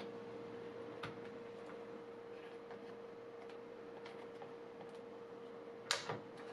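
Faint plastic clicks of a laptop battery being unclipped and lifted out of its bay, with a small click about a second in and two sharper clicks close together near the end, over a steady faint hum.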